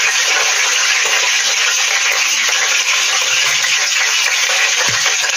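Chicken pieces deep-frying in hot oil in a stainless steel pot, with a steady, even sizzle.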